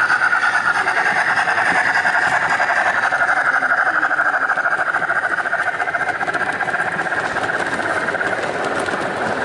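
An 0 gauge model train, a steam locomotive hauling coaches, running past with a steady, fast rhythmic running noise. The noise eases slightly toward the end as the train goes by.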